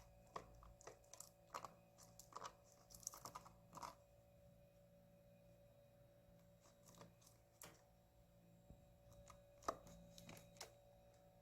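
Faint, quick little clicks and crunches of a chipmunk nibbling a snack, thickest in the first few seconds and returning in a scattered few near the end.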